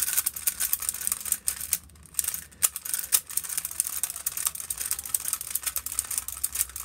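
Rubik's cube being turned rapidly during a speedsolve: a fast, continuous run of plastic clicks and clacks as the layers are twisted, with a short lull about two seconds in.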